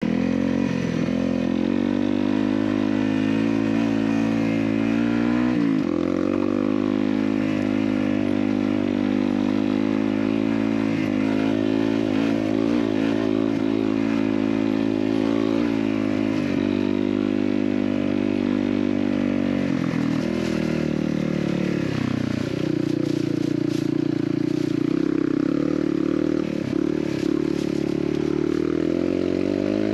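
Honda CRF250L's single-cylinder four-stroke engine running under way on a dirt trail, its pitch rising and falling again and again with the throttle. Scattered clicks come through in the last ten seconds or so.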